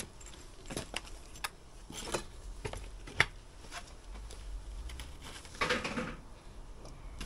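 Scattered light knocks, scuffs and clicks of a person squeezing through a narrow gap in a brick wall beside a window, with a sharper click about three seconds in and a short rustle near six seconds.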